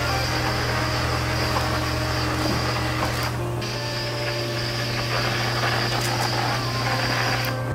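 Electrostatic powder coating gun spraying powder onto a truck spindle: a steady electrical hum under a hiss of air. The air cuts out briefly about three and a half seconds in and stops near the end as the trigger is released.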